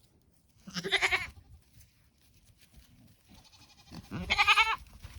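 A goat bleating twice, a short call about a second in and a longer, louder one about four seconds in.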